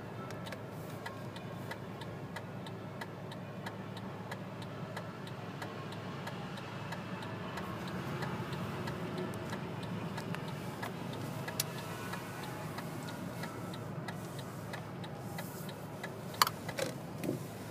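Quick, regular ticking over the low hum of a car driving, with a sharp louder click near the end.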